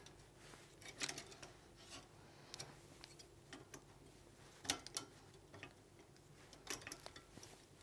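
Faint, scattered clicks and taps of a banding tool and steel band being handled, as the band is fed into the tool and the tool is slid down toward the clip.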